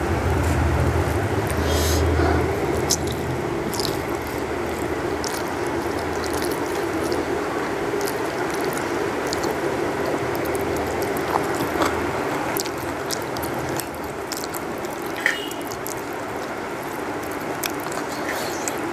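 Hand-eating sounds: fingers mixing rice on a steel plate and chewing, heard as scattered small clicks and smacks. Under them runs a steady background noise with a low hum that fades out about three-quarters of the way through.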